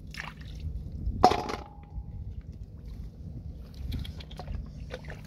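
Hands sloshing and splashing in shallow muddy water. About a second in, a catch is dropped into a steel basin with a sharp clank, and the basin rings briefly.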